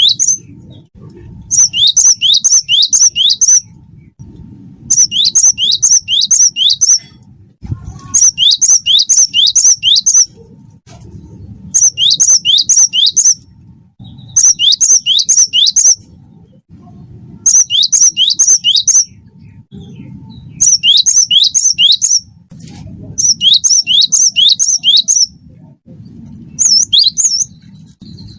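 Cinereous tit (gelatik batu) singing loudly: short phrases of about five quick, high, downward-slurred whistles, repeated every two to three seconds with short pauses between.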